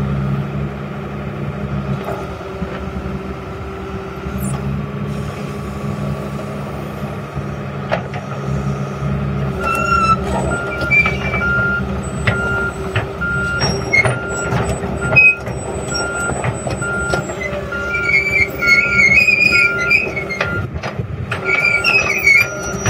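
A Komatsu PC228USLC-1 excavator's Cummins 5.9 L diesel engine is running while the machine works its hydraulics. About ten seconds in, its travel alarm starts beeping steadily, roughly one and a half high beeps a second, the signal that the tracks are moving.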